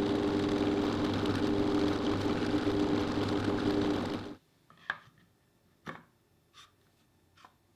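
Power drill running steadily while drilling a hole, then stopping suddenly about four seconds in. A few light clicks and knocks follow.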